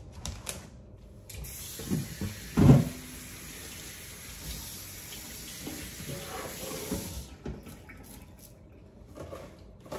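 Water running from a tap for about six seconds, starting and then cutting off suddenly, with a loud knock shortly after it starts and a few lighter handling knocks.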